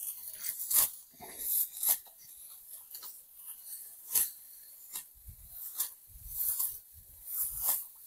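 Dry rice stalks being cut by hand with a sickle: irregular crisp crunches with rustling straw, about one a second, some with a dull low thump under them.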